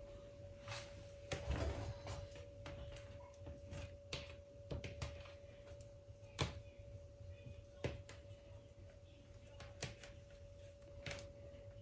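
Faint, scattered light taps and knocks of manty dumplings being hand-shaped and set down, with a longer rustle about a second and a half in, over a steady faint hum.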